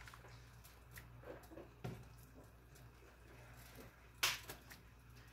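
A metal spoon scraping and tapping in a nonstick skillet of thick sauce as meat is scooped out, with a few light clicks and one sharper scrape or knock about four seconds in, over a faint low hum.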